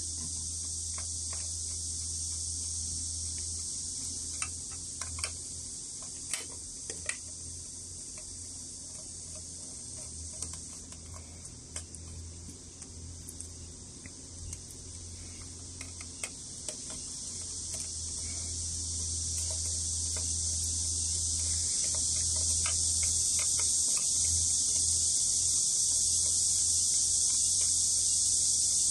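Small scattered clicks and ticks from a screwdriver and hands working the screws out of an IPL handpiece's connector housing. These come mostly in the first half, over a steady high-pitched hiss and a low hum.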